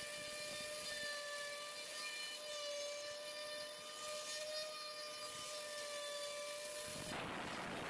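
CNC router spindle whining steadily as the bit cuts a profile through MDF. About seven seconds in, the whine gives way to a rougher hissing noise.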